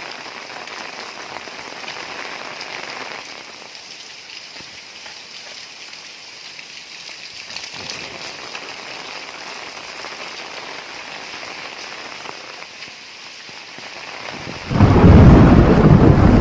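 Heavy rain falling steadily, then near the end a sudden loud thunderclap breaks in and rumbles on.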